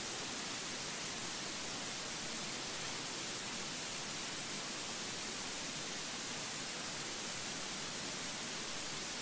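Steady, even hiss, strongest in the high range, with no other sound standing out: the background noise of the recording.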